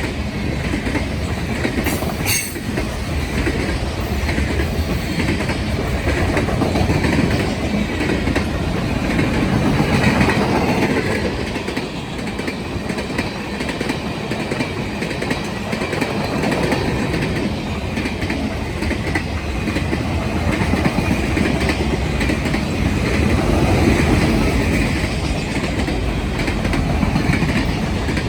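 A long train of railcars rolling steadily past, its wheels rumbling and clattering over the rail joints.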